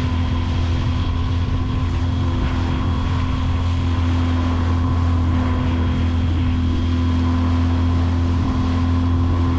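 Outboard motor running at a steady speed as the boat moves across the lake, with a constant low drone and hum, and water and wind noise over it.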